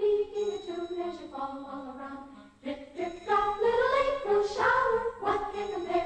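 A choir singing a slow melody over an orchestra, with a brief lull about halfway through.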